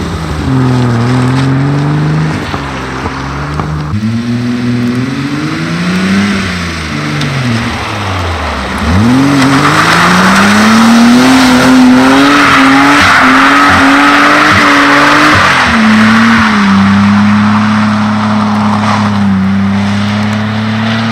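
Stock BMW E30 320i M20B20 straight-six revving up and down hard, with tyres squealing for about six seconds in the middle as the car slides. Near the end the engine holds steady revs.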